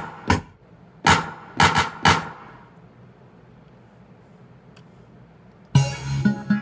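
Drum samples triggered from a Maschine pad controller. One hit comes at the start and three more about a second in, each dying away, then a pause of about three seconds. Near the end a pitched melodic part with bass starts up.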